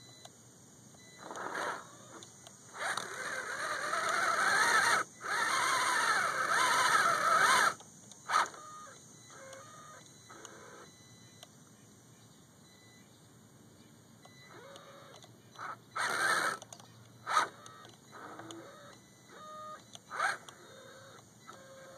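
An Axial SCX10 RC crawler's electric motor and drivetrain whining under throttle, spinning the wheels in deep mud, with a slipping rear axle. The whine wavers in pitch through a long run of several seconds, then comes back in a few short blips later on.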